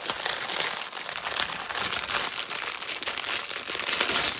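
Plastic packaging crinkling and rustling continuously as it is handled and pulled open.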